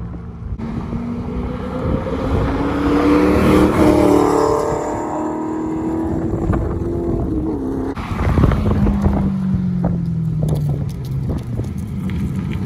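A 2007 Maserati Quattroporte Sport GT's V8 passing at speed: its note builds to a peak about four seconds in, then drops in pitch as it goes by. After a cut about eight seconds in, the same car approaches again, its engine note sliding lower as it nears.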